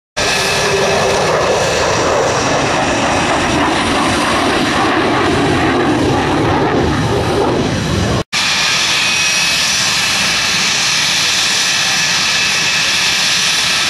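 F-16 fighter's jet engine roaring as it flies a display manoeuvre, cut off suddenly about eight seconds in. A Yak-40 tri-jet airliner then taxis, its turbofans running with a steady high-pitched whine.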